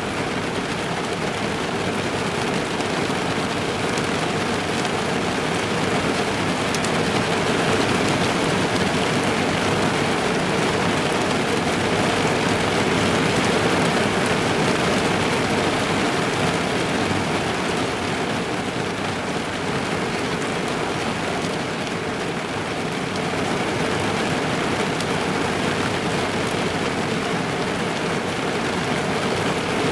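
Steady rain falling on a car's body and roof, heard from inside the car as an even, dense patter.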